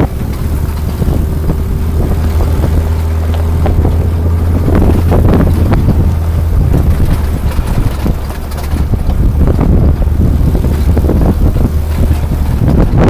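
Off-road vehicle engine running with a steady low drone, heavy wind buffeting the microphone.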